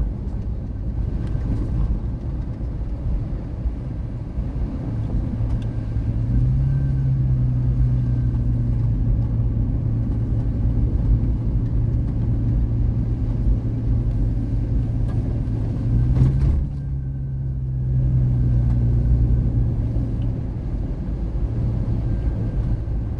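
Car driving along a rough dirt trail, heard from inside the cabin: a steady low rumble of engine and tyres. The engine note rises and holds about a quarter of the way in, drops briefly after a single knock about two-thirds through, then returns before easing off near the end.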